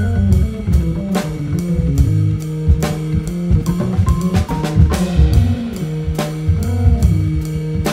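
Hammond organ and drum kit playing together: the organ holds sustained chords over a moving low bass line while the drummer keeps a steady beat of cymbal and drum strikes, several a second.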